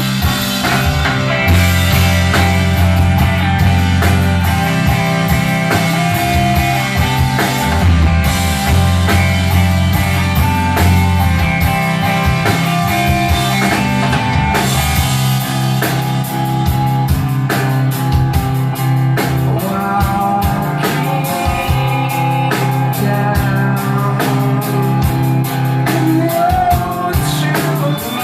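Emo rock band playing live: electric guitars over bass and drum kit.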